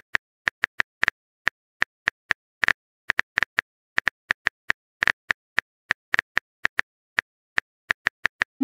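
Phone keyboard typing sound effect: a run of short, sharp key clicks, about five a second at an uneven pace.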